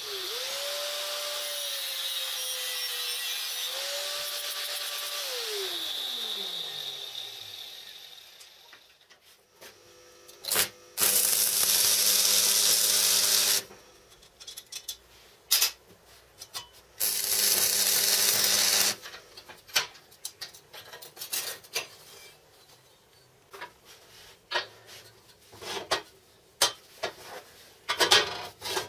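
Angle grinder with an abrasive cutting disc, mounted in a chop stand, runs and cuts a steel tube, its pitch sagging under load and recovering, then spins down over a few seconds. Two louder bursts of abrasive cutting follow, each a few seconds long and stopping abruptly. After that come light metal clanks and knocks as steel parts are handled.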